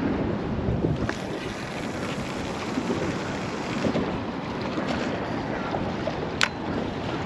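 Wind buffeting the microphone, with a sharp click about six seconds in.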